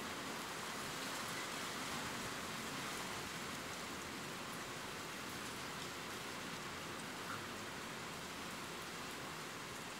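Steady rain ambience: an even hiss of rainfall, with faint scattered drop ticks.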